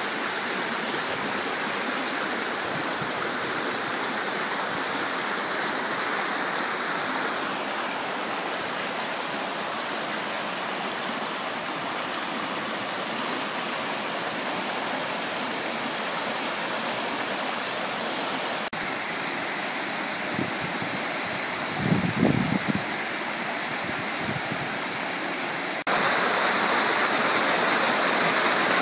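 Mountain stream rushing over limestone rock and splashing down small cascades between pools: a steady wash of running water. A brief low rumble comes about two-thirds of the way through, and the water is suddenly louder a few seconds before the end.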